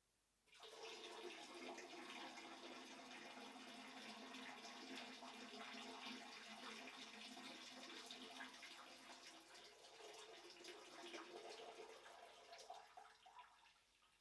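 Urine stream splashing into the water of a toilet bowl. It starts about half a second in, runs steadily, then tapers off and trickles out near the end.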